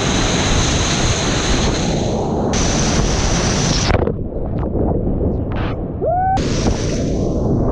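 Whitewater rapid rushing loudly around a kayak, heard close up from a helmet camera. About four seconds in the camera goes under the foam and the sound turns muffled and dull for about two seconds, with a short rising whistle, before the full rush of the rapid comes back.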